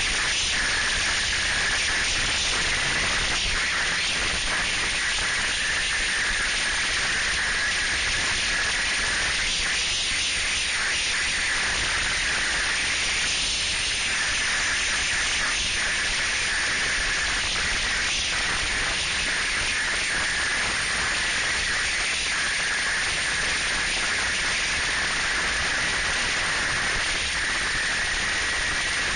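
Snowmobile running at speed: a steady, loud rushing hiss of wind and machine noise, with a high whine in it that thins out briefly around the middle.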